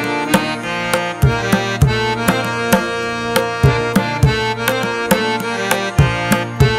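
Background instrumental music: a sustained pitched melody over a steady hand-drum beat.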